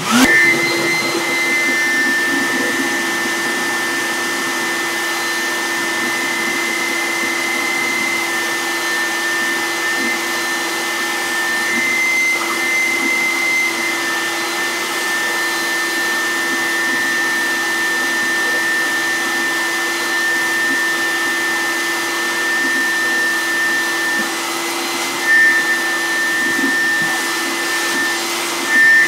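Lowe's BucketMax shop vacuum switched on and running steadily, its motor making a steady high whine, drawing air through an Oneida Dust Deputy cyclone separator. A few brief louder surges come near the end.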